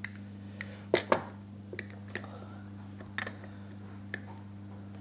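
Metal clicks and clinks of a Stanley No. 60 1/2 low-angle block plane's lever cap being worked loose and pulled off its blade, a sharp pair loudest about a second in and lighter clicks after, over a steady low electrical hum.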